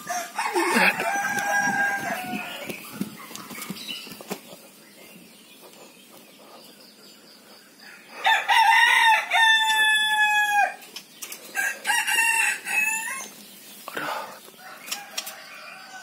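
Roosters crowing: a long drawn-out crow about halfway through, with shorter crows near the start and a little after it.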